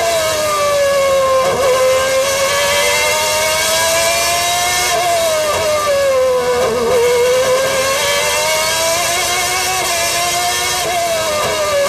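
Honda V12 engine of a 1992 McLaren MP4/7A Formula One car at racing speed, heard from on board. Its pitch climbs slowly under acceleration and falls away as the car slows for corners, dipping three times.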